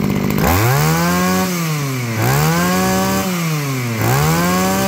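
Mitsubishi TB23 two-stroke brush cutter engine revved three times: each time the pitch climbs from near idle to high revs, holds for about a second, then drops back.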